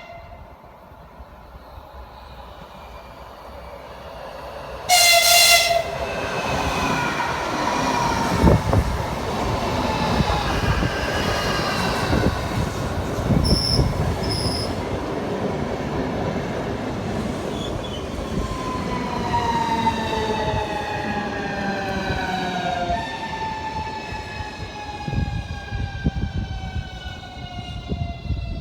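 A train sounds a short horn blast about five seconds in, then passes close by with loud rumbling and wheel clatter. Near the end, whining tones from the train slide steadily lower as it moves away.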